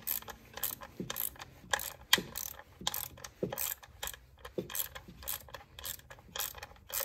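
Quarter-inch drive ratchet clicking in quick runs, about three strokes a second, as it runs in and tightens the small 7 mm screws holding a plastic MAP sensor in place.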